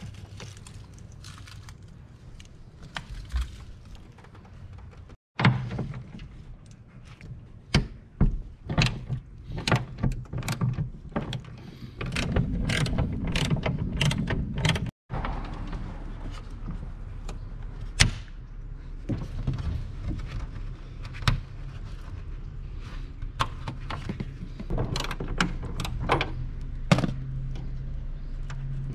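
Hand tools working the hood hinge bolts on a car: a socket ratchet and extension clicking in runs, denser about halfway through, among clinks and knocks of metal parts being handled.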